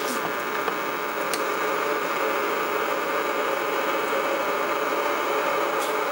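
Chaotic array of NE-2 neon bulbs, capacitors and resistors heard through an amplifier and speaker: a dense, steady hiss and crackle of the neons firing, with faint steady tones in it and a few sharper clicks.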